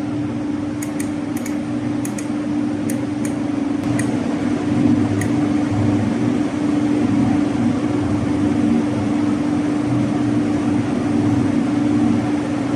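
Lathe running steadily with a constant hum and a low rumble, with a few light clicks in the first few seconds.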